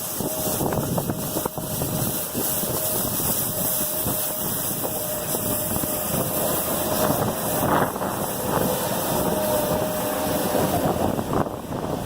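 Engine of a snow-sweeping machine running steadily with a constant whine, along with wind noise on the microphone.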